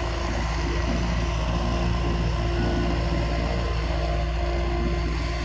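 CAT tandem drum roller compacting a gravel base with a skid-steer loader working behind it: a deep, steady engine rumble that holds even throughout.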